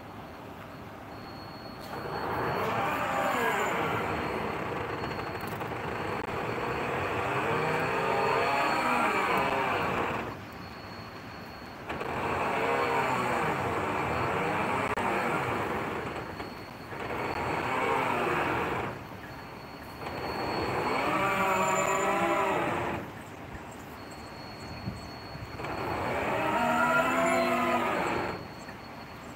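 Slipway launch of a tugboat: metal grinding and squealing that rises and falls in pitch, in five stretches of a few seconds each with short pauses between.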